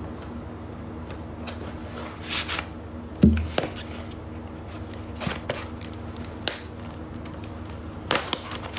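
A kraft cardboard box being handled and opened: scattered scrapes and rustles of cardboard, with one dull thump about three seconds in.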